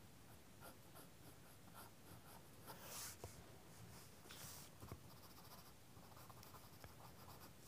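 Graphite pencil scratching faintly on sketching paper in short shading strokes, the longest about three and four and a half seconds in.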